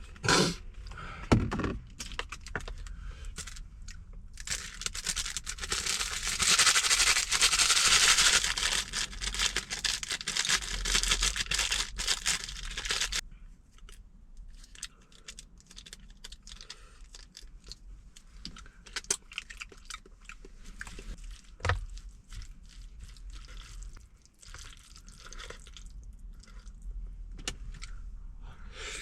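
Mukbang eating sounds: a utensil scraping and clicking in a takeout food container. Several seconds of loud scraping and rustling in the first half, then quieter scattered clicks and small handling noises.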